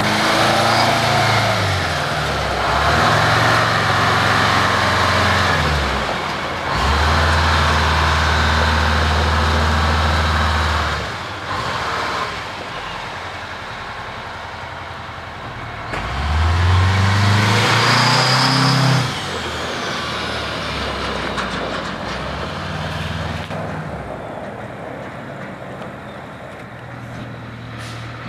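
Oshkosh M977 HEMTT 8x8 truck's two-stroke V8 diesel engine pulling away under load, the engine note rising in several surges of acceleration and dropping between them. It grows quieter near the end as the truck moves away.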